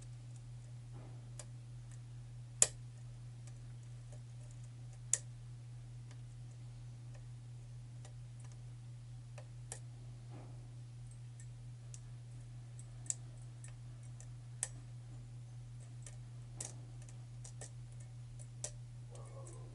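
Sharp, irregular metallic clicks of a lock pick and tension tool working the pins inside a pin-tumbler challenge lock with a tight paracentric keyway, two louder clicks in the first few seconds and lighter ones scattered after. A steady low hum runs underneath.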